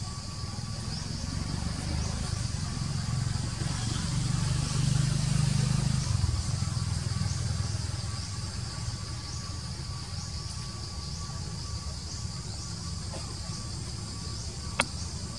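Forest insects chirping steadily in a high, continuous band of short repeated calls, under a low rumble that swells and fades around the middle. A single sharp click comes near the end.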